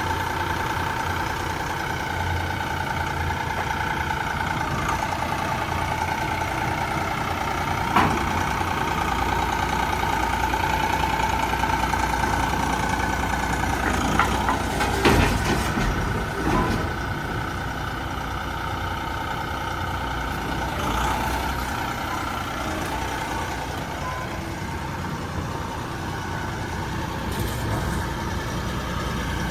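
Vermeer SC48TX stump grinder's engine running at a steady speed with a steady whine, broken by a few sharp knocks, once about a quarter of the way in and twice about halfway through.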